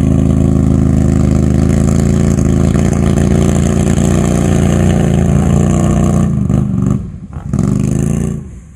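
Quad bike engine running loud and steady under load as it climbs a steep dirt bank. It eases off about six and a half seconds in, gives one short burst of throttle, then drops away near the end.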